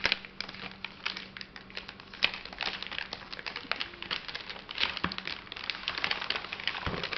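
Glossy gift wrapping crinkling and rustling as hands unfold and peel it back, a steady run of small crackles.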